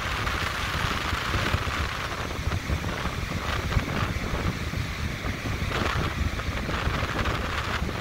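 Wind buffeting the microphone over the steady hiss of Lake Michigan surf breaking on the shore.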